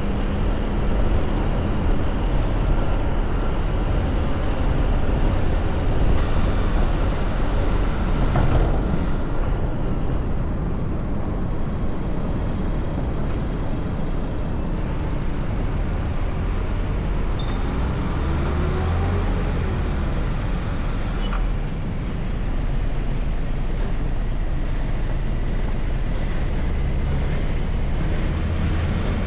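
Car driving through city traffic: steady road noise with a low engine hum.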